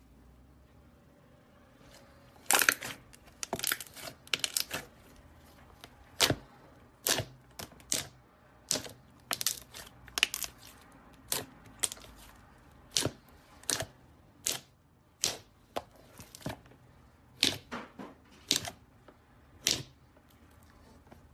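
Slime being squeezed and worked by hand, giving off sharp, irregular pops and clicks, about one or two a second, as air pockets burst. They start a couple of seconds in and stop shortly before the end.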